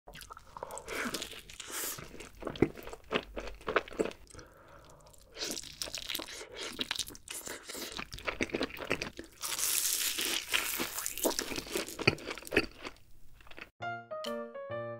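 Close-miked eating: a person biting and chewing cheeseburger and barbecue-glazed chicken, in irregular bites. Near the end the eating stops and a light keyboard tune starts.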